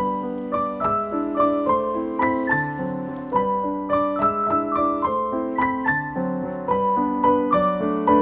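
Background piano music: a gentle melody of single notes over soft chords.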